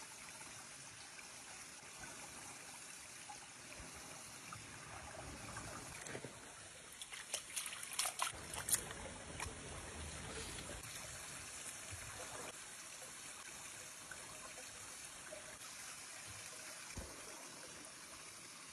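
A small forest stream trickling steadily, with a few short clicks and rustles about halfway through.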